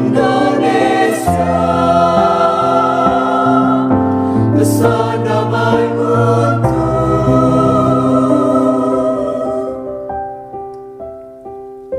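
Mixed choir singing the closing phrase of a song in long held chords over instrumental accompaniment. About ten seconds in the singing fades out, leaving a few accompanying notes ringing and dying away as the piece ends.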